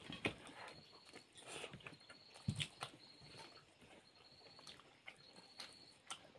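Faint eating noises: chewing and scattered clicks and knocks of hands and food against steel bowls. Behind them a high insect trill keeps starting and stopping.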